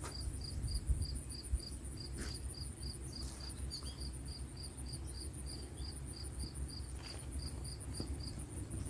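A cricket chirping steadily, about three short high chirps a second, over a low steady rumble; the chirps pause briefly near the end.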